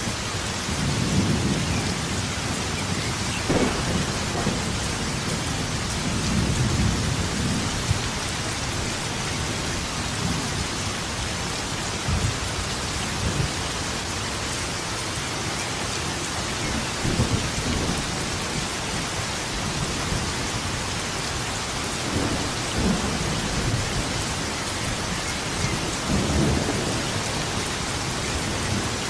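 Steady heavy rain hissing, with rolls of thunder rumbling low several times through it and one sharper crack of thunder about three and a half seconds in.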